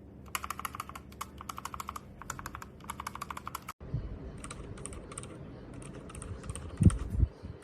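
Rapid typing on a mechanical keyboard fitted with Outemu switches. About four seconds in the sound cuts abruptly and the typing goes on with a different, thinner click, with a dull thump shortly before the end.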